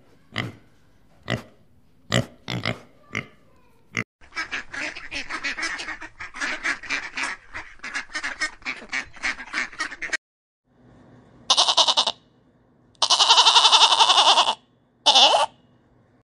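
Short separate animal calls about once a second, then ducks quacking in a fast, dense run for about six seconds, then goats bleating in three loud, quavering bursts, the middle one lasting over a second.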